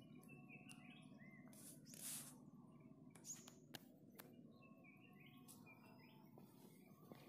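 Faint bird calls: short chirps in small clusters over a quiet rural background, with a brief rush of noise about two seconds in and a few faint clicks.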